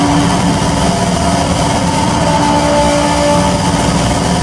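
Loud, dense electronic noise drone played live from a tabletop rig, a steady rumble and hiss with a few held tones that come and go and change pitch partway through.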